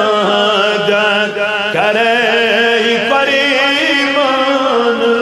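Chanted devotional naat singing: a voice holding long, ornamented, wavering notes over a steady sustained drone, with a new phrase beginning about two seconds in.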